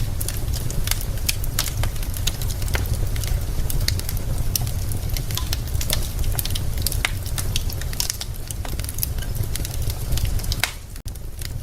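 Wood fire burning in a fireplace, the logs crackling with many sharp pops over a low steady rumble. The sound drops briefly near the end.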